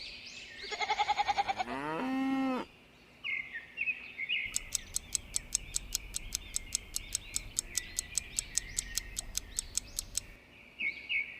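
Small birds chirping steadily. Near the start comes a drawn-out pitched call that rises in pitch, and through the middle a run of sharp, even clicks, about four or five a second.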